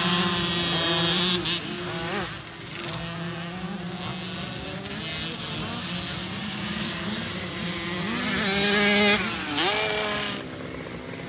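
Several small dirt bike engines running on a motocross track, their pitch rising and falling as the riders accelerate, shift and back off. Louder near the start and again about nine seconds in.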